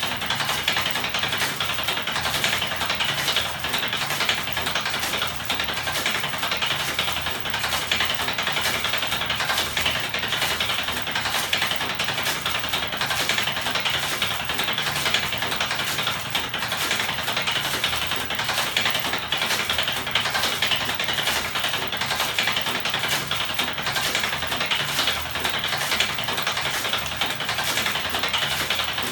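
Homemade battery-powered electric 'ornithopter' magnet machine running: the spinning frame of small electric motors gives a steady rattle made of many rapid ticks.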